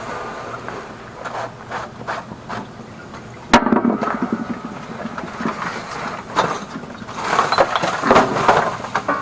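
Clothing rubbing against the microphone of a carried camera, with footsteps and knocks on wooden decking. A sharp knock about three and a half seconds in is the loudest sound.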